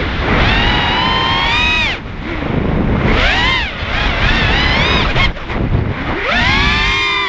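Racing mini quad's brushless motors and propellers whining, heard from its onboard camera over heavy wind rush on the microphone. The whine climbs and falls with about four throttle punches: a long one through the first two seconds that cuts off sharply, a short one around three seconds in, a wavering one around four to five seconds, and a last one climbing near the end.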